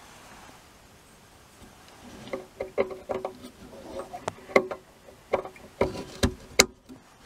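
Irregular small clicks, taps and scrapes of hand work on a valve radio chassis, starting about two seconds in, some taps with a brief metallic ring.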